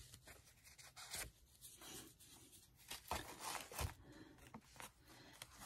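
Faint rustling and light taps of paper and craft supplies being handled on a desk, with a few slightly louder taps about a second in and again around three to four seconds in.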